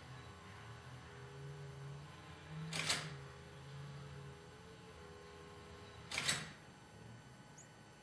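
Two short mechanical clatters from the recording camera, about three and a half seconds apart, over a faint low hum.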